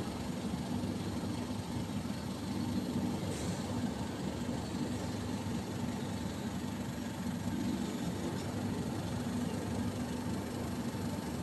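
Steady low hum of city traffic and engines heard from above the rooftops, a constant drone with no clear single vehicle standing out.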